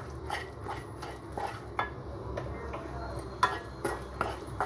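Wooden spatula scraping and tapping against a non-stick pan as it stirs and breaks up scrambled eggs, in quick irregular strokes a few times a second.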